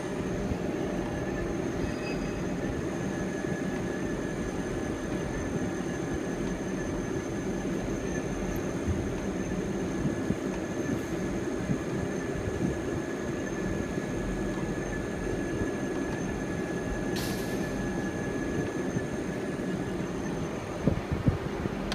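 CNC milling machine running as it cuts the rib grooves into a steel rolling-mill roll for ribbed rebar: a steady mechanical noise with a steady high whine. A brief hiss comes about seventeen seconds in, and a few knocks near the end.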